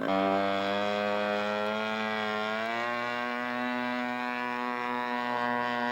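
Radio-controlled scale model airplane engine running at high speed with a steady buzzing tone; its pitch rises about two seconds in as the throttle opens, then holds steady.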